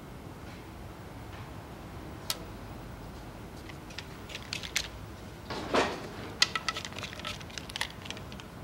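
Japanese carpenter's inkpot (sumitsubo) line: a single sharp snap of the inked line against the timber, then light clicks and a short rustle as the line is reeled back into the inkpot and its pin pulls free of the beam.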